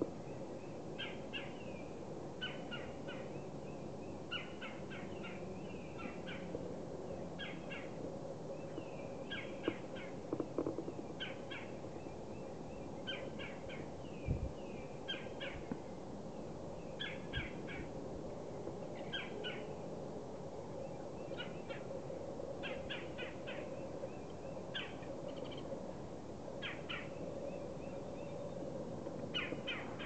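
A bird calling over and over: short, quick runs of a few sharp high notes, one run every second or two, over a steady low background hum.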